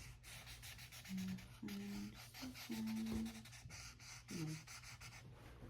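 Marker tip scratching and rubbing across paper in short strokes, with a voice humming a few short held notes of a tune.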